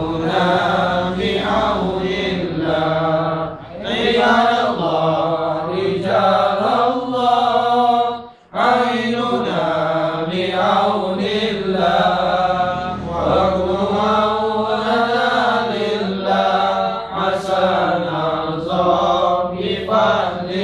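Men's voices chanting an Arabic devotional litany (dhikr) in a steady, melodic recitation, with a short breath pause about eight seconds in.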